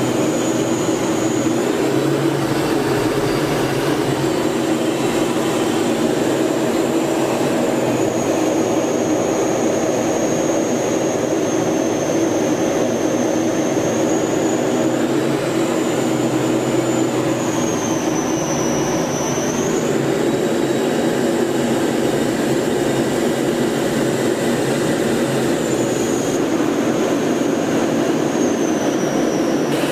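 Jet aircraft cabin noise in flight: a steady engine and airflow roar under a thin high turbine whine that sags in pitch and recovers several times, most deeply a little after halfway and again near the end.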